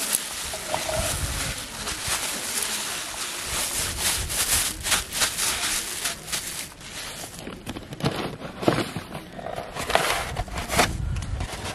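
Thin plastic bag crinkling and rustling in irregular crackles as it is handled and squeezed to empty cooked rice into a metal bowl, with low handling bumps.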